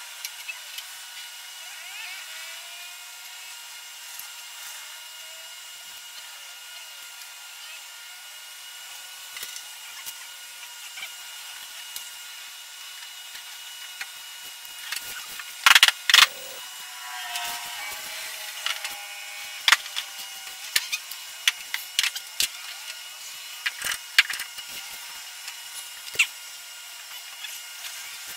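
Knocks, taps and light scraping of plywood and handled objects as a plywood bottom panel is laid on the epoxied hull frame and weighted down with jugs and a clamp. The loudest is a quick pair of sharp knocks about halfway through, with more scattered knocks after it, over a faint steady high tone.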